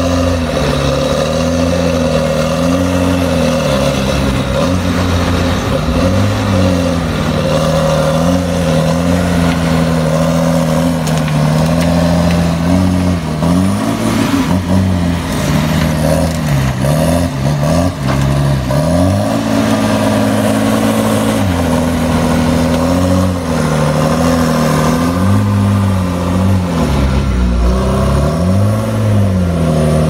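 Diesel engine of a Tigercat 635D six-wheel skidder working under load, its pitch rising and falling over and over as it pushes slash with its blade. Heard from inside the cab of another machine.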